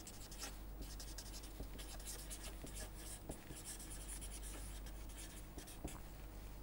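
Marker pen writing on paper: a run of faint, quick scratchy strokes as a line of words is written.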